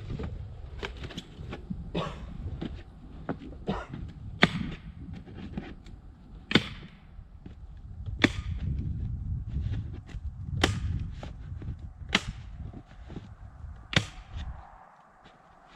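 Staple gun firing staples through roofing felt into the wooden hive boxes: six loud sharp snaps a second or two apart, with lighter clicks between, over a low wind rumble.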